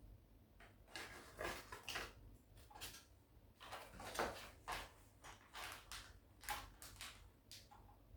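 Plastic Gunpla model kit parts being handled and fitted during assembly: faint, irregular clicks and scratchy rustles, a dozen or so spread unevenly.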